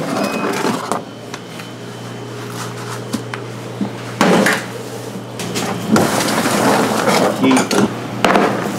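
Metal sheet pans of raw pork being slid out of a refrigerator rack and set down on a stainless-steel counter: a few sharp metallic knocks and clatters a couple of seconds apart, over a steady low hum.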